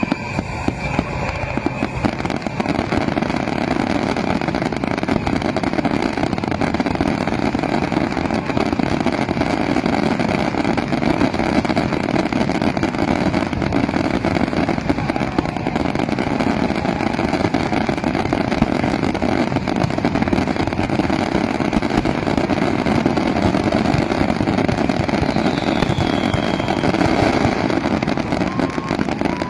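Fireworks display in a dense, continuous barrage: rapid bangs and crackles running together into a steady, loud rumble.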